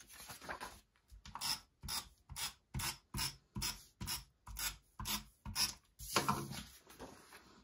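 Handheld adhesive tape runner drawn across paper in short repeated strokes, about two to three a second, with one longer stroke near the end, laying adhesive on the back of a sheet of patterned paper.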